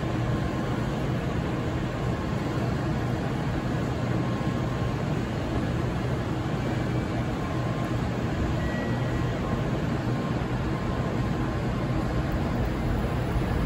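N700-series Shinkansen train approaching on the through track, heard as a steady low rumble and hum that starts to swell near the end.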